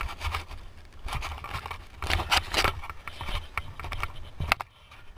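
Mountain bike on a rough forest trail: irregular rattling, clicking and scraping of the bike and brush, with a low rumble. It falls briefly quiet near the end.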